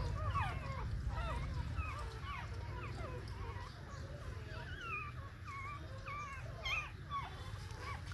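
Young puppies whimpering, with many short high-pitched squeaky cries one after another.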